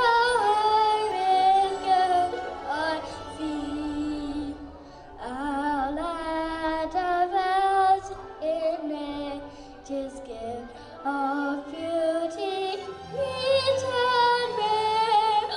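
A child's solo voice singing the national anthem, with hiccups catching the voice mid-phrase.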